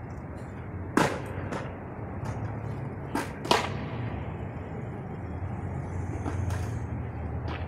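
Shoes knocking on a metal handrail as a person balances along it: a few sharp clicks, two of them louder, about a second in and about three and a half seconds in. Under them a steady low hum of city traffic.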